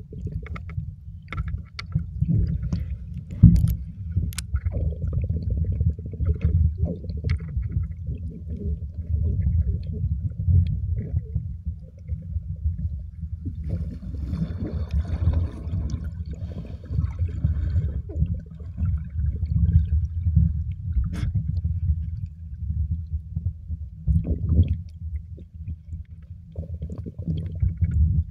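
Underwater ambience picked up by a camera in shallow water over a coral reef: a churning low rumble of moving water, with scattered sharp clicks and a few seconds of higher fizzing hiss midway.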